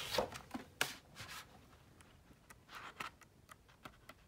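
Pages of a paperback coloring book being handled and leafed through: soft paper rustling and light taps, with one sharp tap about a second in the loudest.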